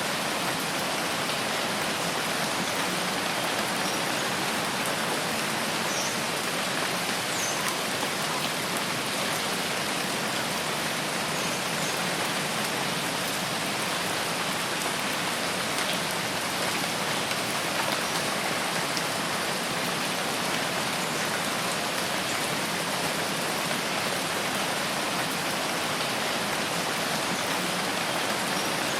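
Steady rain falling, an even hiss of many drops with no letup.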